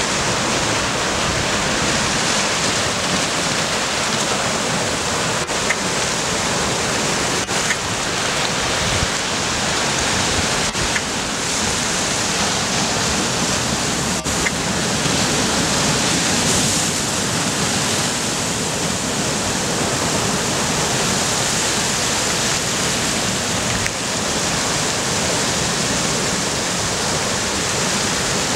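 Sea waves breaking and washing over rocks, a steady rushing surf without let-up.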